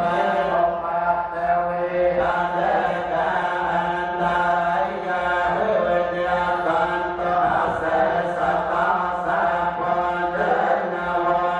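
Buddhist chanting: a group of voices chanting together in a steady, continuous recitation without pause.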